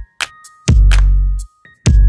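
Electronic background music with drum-machine hits and a long, deep bass note about two-thirds of a second in, with light synth tones above.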